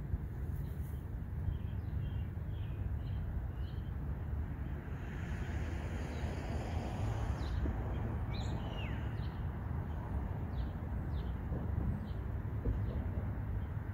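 Outdoor ambience: a steady low rumble with scattered short bird chirps, one of them sliding downward in pitch about eight seconds in.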